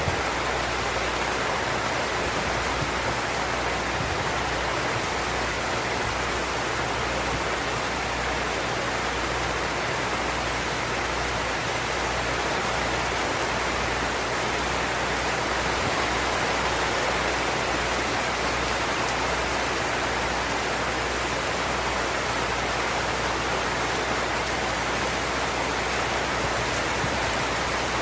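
Steady heavy tropical rain falling: a dense, even hiss with no breaks or single drop hits standing out.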